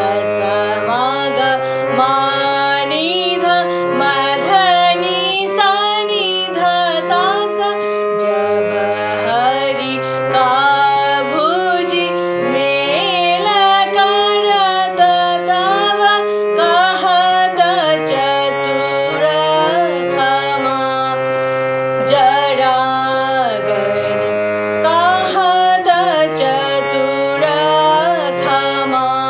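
A woman singing a lakshan geet in Raag Khamaj, a Hindustani classical composition whose words describe the raga, with gliding, ornamented phrases over held accompanying notes that change in steps.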